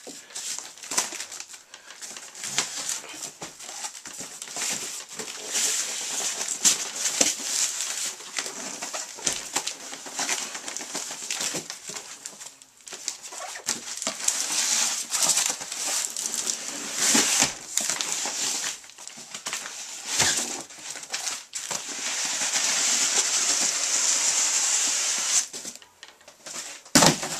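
Cardboard shipping box being opened and handled: flaps rustling and knocking, cardboard scraping and rubbing, with many small knocks throughout. Near the end comes a few seconds of steady scraping, cardboard rubbing against cardboard as the inner box is worked free.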